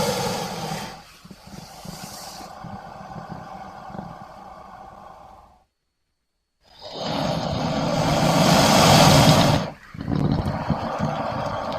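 Monster roar and growl sound effects: a roar fading into a quieter, steady growl, about a second of silence, then a louder roar that builds for about three seconds, breaks off, and is followed by another steady growl.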